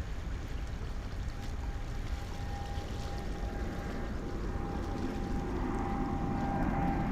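Boeing 787-8 Dreamliner climbing out after takeoff: a steady low jet-engine rumble that grows louder toward the end, with a faint steady whine above it.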